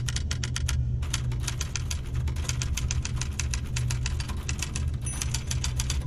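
Typewriter keys struck in a rapid run, several sharp clacks a second, with a short pause about a second in, over a steady low hum.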